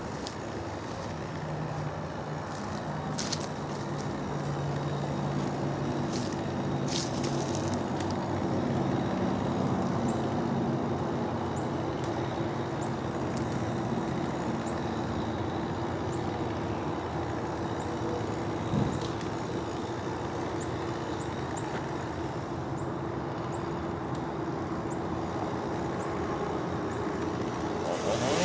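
A truck engine running steadily, with a low drone. One dull thump comes about two-thirds of the way through.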